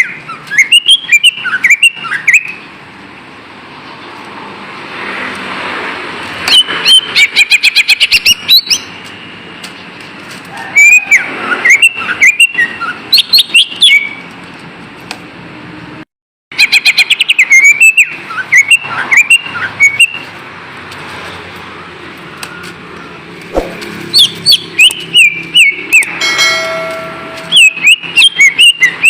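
Greater green leafbird (cucak ijo) singing: loud bursts of rapid, sweeping whistled notes and chirps, each burst a second or two long with pauses between. A short held buzzy note comes near the end, and the sound cuts out for a moment about sixteen seconds in.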